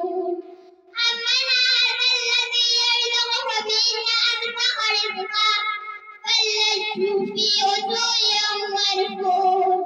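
A young girl's voice reciting the Qur'an in a melodic, chanted style, with long held phrases that waver in pitch, pausing for breath just before a second in and briefly again around six seconds.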